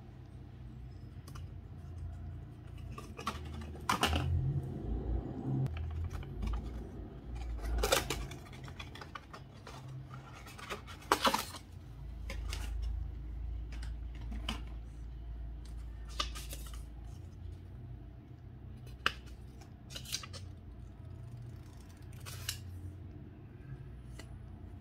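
Unboxing handling sounds: a cardboard watch box and a paper booklet being handled, giving scattered sharp clicks, taps and rustles a few seconds apart over a steady low hum.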